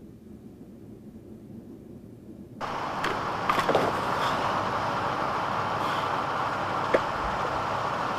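Construction-site machinery: a low engine rumble, then suddenly a much louder full-range din from about two and a half seconds in, with scattered metallic clanks and knocks.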